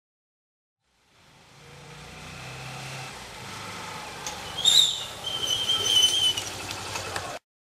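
Honda CBF Stunner single-cylinder motorcycle riding up and past, its engine sound swelling in from about a second in. Past the middle a high squeal rings out over it, and the sound cuts off abruptly just before the end.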